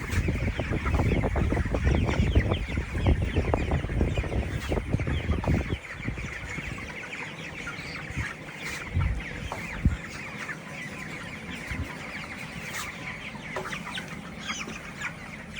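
A flock of 21-day-old broiler chickens peeping and clucking, many birds calling over one another without pause. A loud low rumble lies under the calls for about the first six seconds, then stops.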